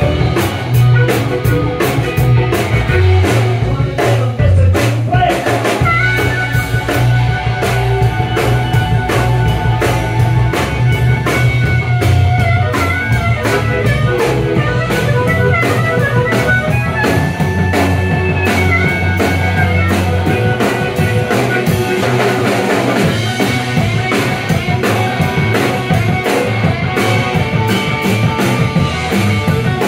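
Live rock-and-blues band playing an instrumental passage: drum kit with cymbals driving a steady beat under electric guitar and bass. About six seconds in, a lead line of held notes that step up and down in pitch comes in over the band.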